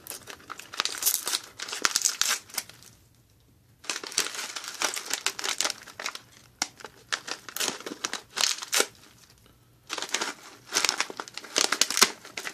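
Crinkling and tearing of a plastic MRE snack pouch of corn nuts being handled and ripped open. It comes in three spells, with brief pauses about three and nine seconds in.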